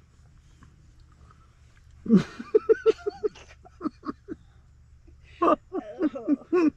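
A person's voice in quick, short pitched bursts, starting loudly about two seconds in with a falling sound, then a rapid string of about six bursts a second, and another run near the end; no words are made out.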